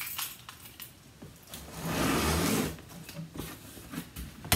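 Handling a large cardboard shipping box: one scraping, rubbing sound of about a second, with light clicks and taps before and after it.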